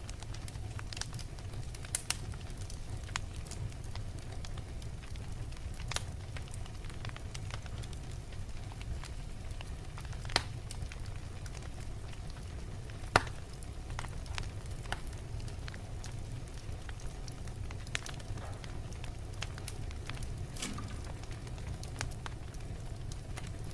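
Wood fire burning in a fireplace: a steady low rumble with scattered sharp crackles and pops, the loudest about ten and thirteen seconds in.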